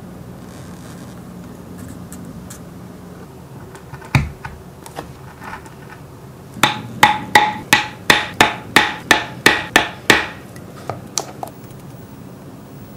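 A mallet striking a metal leather punch or pricking iron held against a leather strap: one knock, then a run of about a dozen sharp, ringing strikes at roughly three a second, followed by a few faint taps.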